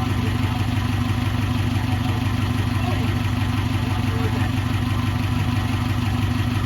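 Subaru Brumby's flat-four engine idling steadily, exhausting through a freshly repaired rear muffler with no exhaust leaks.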